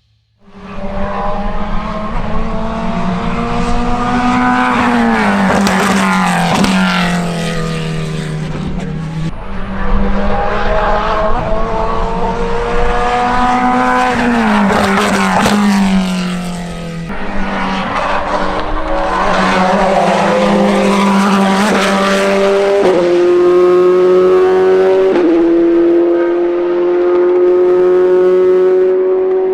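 Chevrolet C8.R race car's flat-plane-crank V8 running hard on track, loud and continuous. Its pitch falls away twice, and near the end it steps up to a higher steady note.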